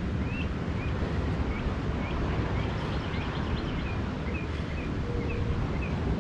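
Ocean surf rolling in, mixed with wind rumbling on the microphone: a steady rush with no breaks.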